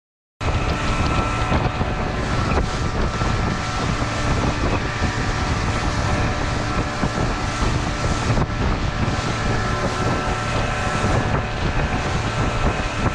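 Heavy wind buffeting the microphone on a motorboat, with the steady tones of the boat's engine running underneath. It cuts in abruptly about half a second in.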